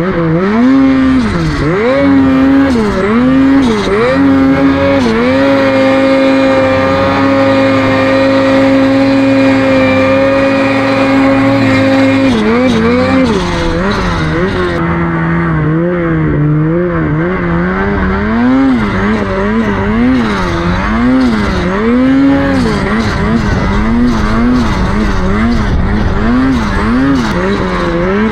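Snowmobile engine revving, its pitch swinging up and down with the throttle, held at one steady pitch for several seconds about five seconds in, then rising and falling again in quick blips.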